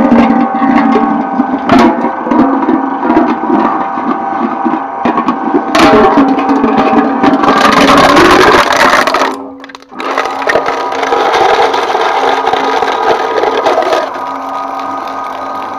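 Twin-shaft shredder's motor and cutters running with a steady hum while they crunch and tear up metal cans and containers. The crunching is loudest about halfway through, breaks off for a moment, carries on until near the end, and then the shredder runs empty with only its hum.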